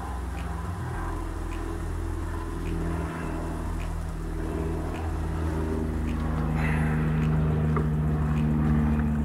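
Honey bees buzzing around the hive entrance. Several fly close enough to give a steady, shifting drone that grows a little louder toward the end.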